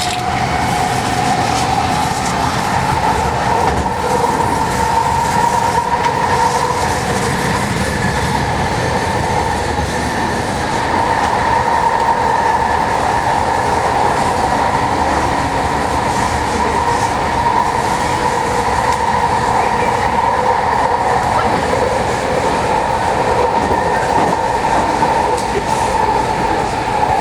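Vancouver SkyTrain car running along the track. A high whine from the drive rises in the first second and then holds steady over a continuous noisy rumble from the wheels on the rails.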